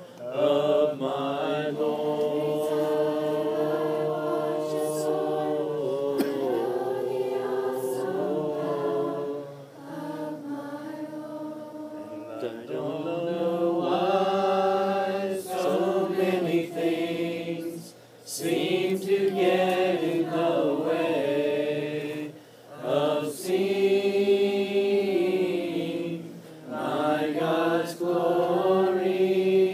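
A group of voices singing a slow worship song in long held phrases, with short breaks between phrases.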